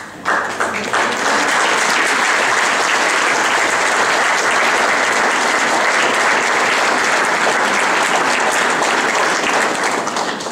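Audience applauding: a few separate claps just after the start, filling into steady applause within a second, dying away near the end.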